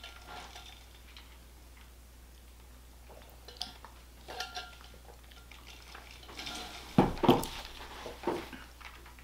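Quiet tabletop handling: a few light clicks and clinks from a drink tumbler and candy, then a louder pair of knocks about seven seconds in as the tumbler is set down on the wooden table.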